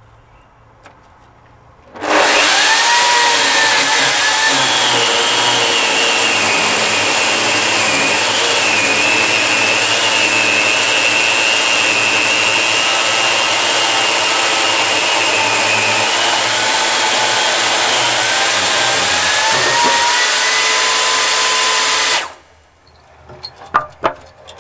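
Power saw on a pole-scarfing rig cutting through a timber pole: it comes on suddenly about 2 seconds in, runs steadily at full speed with its pitch sagging slightly under load now and then, and cuts off abruptly a few seconds before the end, followed by a few small knocks.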